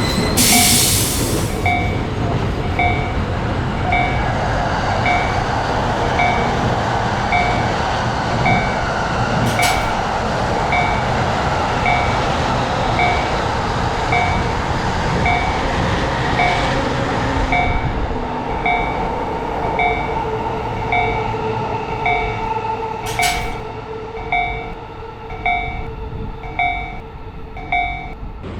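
An electric train runs past a Japanese railway level crossing while the crossing's electronic warning bell dings steadily, about once a second. A little past halfway the train's rumble fades away, leaving the bell and a faint steady tone.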